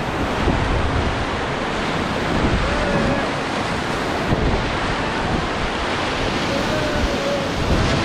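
Steady rushing and splashing of whitewater rapids around an inflatable raft, with wind buffeting the action-camera microphone.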